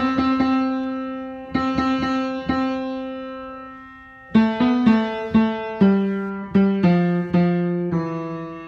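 Piano playing a slow passage of chords, each struck note dying away. The sound fades out about four seconds in, then a new run of chords follows, struck roughly every half second.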